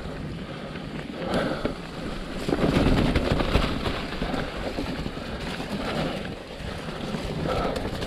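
Mountain bike descending a dirt forest trail: tyres rolling over dirt and roots and the bike clattering over bumps, with wind rushing over the microphone. It gets louder and rougher about three seconds in.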